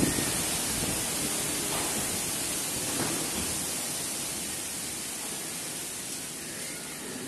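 Storm wind rushing through palm trees, a steady hiss that slowly eases toward the end.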